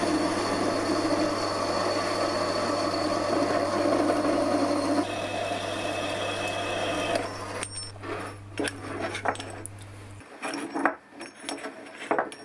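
Horizontal metal-cutting bandsaw running, its blade cutting through a metal tube with a steady rasping sound over the motor hum. The cutting sound changes about five seconds in and turns uneven after about seven. The saw stops about ten seconds in, followed by light clinks of the cut metal tubes being handled on a bench.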